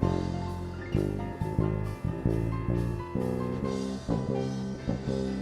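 Instrumental music of a worship song, with a drum kit playing under bass and held chords, and no singing.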